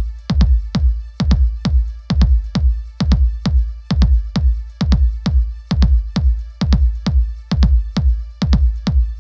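Electronic dance music with a steady drum-machine kick beat, a little over two beats a second, over deep bass.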